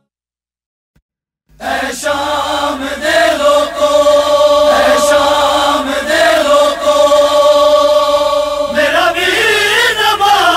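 Silent for about a second and a half, then the opening of a noha: a chorus holds a steady chanted drone, with a few scattered thumps. Near the end a voice rises over it in a wavering, ornamented line.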